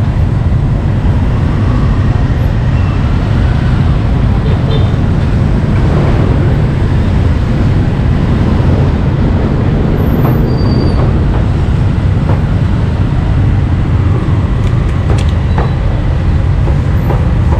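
Steady low rumble of road traffic and street bustle, with a few scattered knocks and faint voices.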